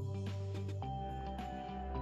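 Background music: a gentle instrumental with held bass notes and light plucked notes on top, the bass moving to a new note just under a second in.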